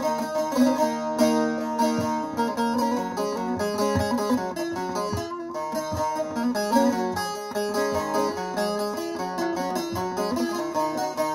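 Bağlama (long-necked Turkish saz) played solo: a picked melody of many quick strokes over held, ringing notes, the instrumental introduction to a Turkish folk lament.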